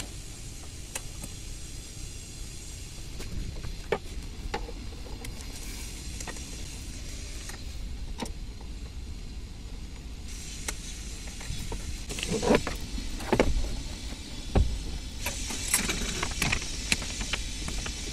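Clicks, knocks and rattles of an excavator cab's side console and its cover panel being handled and fitted into place, scattered at first and busier and louder in the last six seconds, with a few dull thuds, over a steady background hiss.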